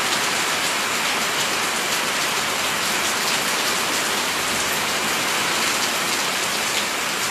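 Heavy rain pouring steadily, splashing onto wet brick paving.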